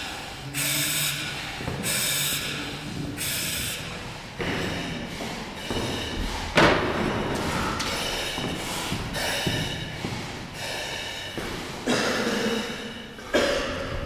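Firefighter breathing hard through a breathing-apparatus face mask: loud hissing breaths, one after another about once a second. A sharp thud cuts in about halfway through.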